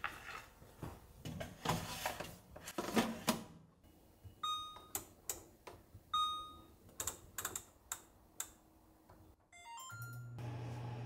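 Clicks and knocks of kitchen handling, then two short beeps from an oven's touch controls, a quick run of ticks, and a low steady hum that starts near the end as the oven begins running.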